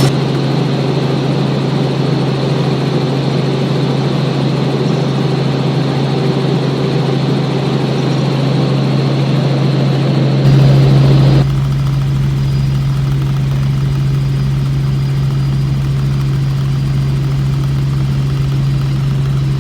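Helicopter in flight: a steady drone of engine and rotor over a constant low hum. About halfway through it briefly gets louder, then the higher hiss drops away and the low hum carries on.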